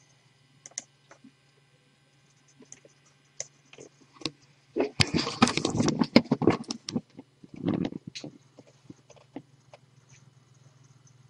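Handling noise: scattered clicks and taps, with a dense stretch of rapid clicking and rustling about five to seven seconds in and another short flurry near eight seconds, over a faint low steady hum.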